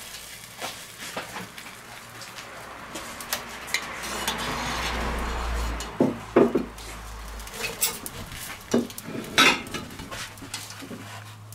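Metal grill tongs and a spatula scraping and clinking against a cast-iron Dutch oven while baked pears are lifted out, with a few sharper knocks about six and nine and a half seconds in. A low rushing noise swells in the middle.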